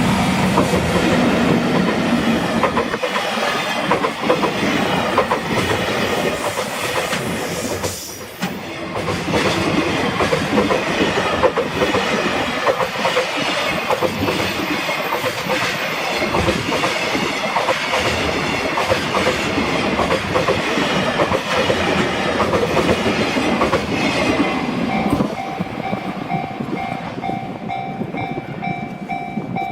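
Freight train wagons rolling past at a level crossing, wheels clattering over the rail joints. Near the end, as the clatter eases, the crossing's warning bell is heard ringing in steady repeated pulses.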